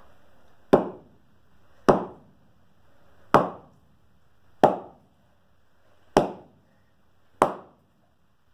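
Six sharp wooden thuds, about one every second and a quarter: an axe with a log stuck on its blade is slammed down onto a wooden chopping block, each blow driving the blade deeper to split the log.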